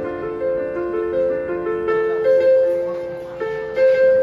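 Solo piano background music, a slow melody of single held notes.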